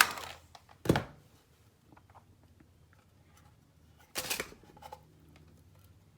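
A steady rushing hiss cuts off at the very start. A single sharp knock follows about a second in, then a brief clatter of hard objects being handled or set down on a work surface around four seconds in.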